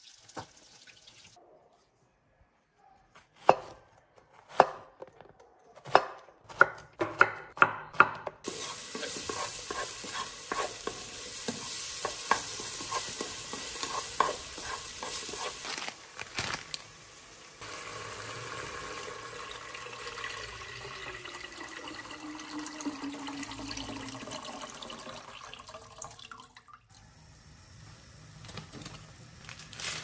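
A run of sharp knife strokes on a wooden chopping board, coming faster, then a long steady hiss of a pot of water heating toward the boil on the stove.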